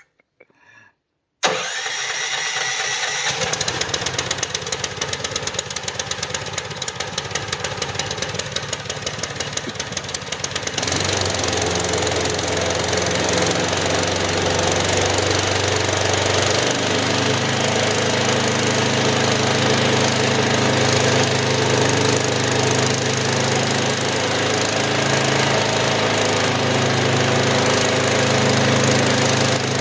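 18 horsepower Ducar gasoline engine on a wood chipper starting on choke, catching suddenly and running with a rapid, even chugging. About ten seconds in it changes to a louder, steadier run.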